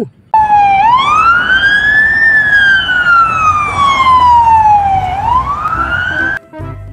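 Police car siren wailing: the pitch rises, falls slowly over about three seconds, then rises again before cutting off suddenly just after six seconds in.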